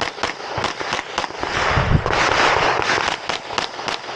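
Rapid 9mm pistol fire from a Canik METE SFT Pro, about a dozen sharp shots, many in quick pairs with short gaps between. A rushing noise runs under the shots, and there is a dull thump near the middle.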